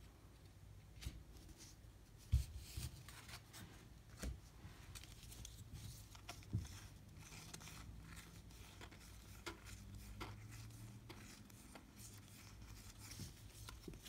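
Stack of cardboard baseball cards being flipped through by hand, cards slid one at a time across the stack: faint, scattered clicks and rustles of card stock, with a couple of soft knocks, over a faint low hum.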